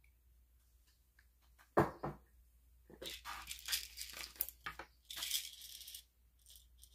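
Medicine packaging being handled to get pills out: a sharp click about two seconds in, then a few seconds of irregular crinkling and rustling.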